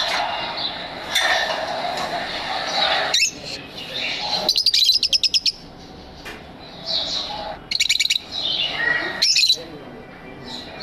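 Lovebirds chirping and chattering, with quick rattling runs of rapidly repeated chirps about halfway through and again about three quarters of the way in.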